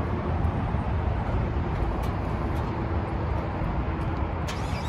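Car engine idling: a steady low rumble with no change in level.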